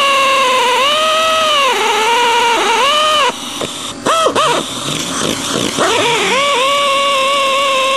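Electric drill whining as it redrills the oil-feed hole through a piston's gudgeon-pin boss into the bush, its pitch dipping as the bit bites. It stops about three seconds in, is blipped briefly a couple of times, then runs steadily again.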